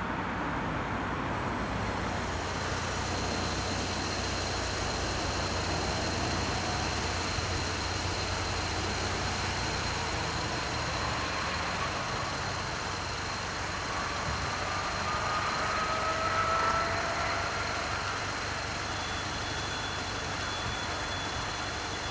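Steady rumble of road vehicles waiting and running at a closed level crossing, with a faint steady high whine over it. It swells slightly about two thirds of the way through.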